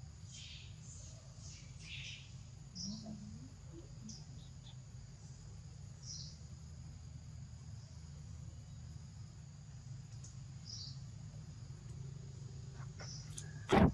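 Short high-pitched chirps and squeaks come here and there over a steady low background hum. A single sharp, loud knock sounds about a second before the end.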